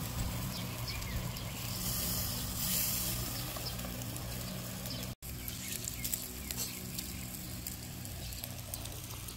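Meat sizzling on a camp grill, with scattered small crackles over a steady low hum. The sound drops out for an instant about five seconds in.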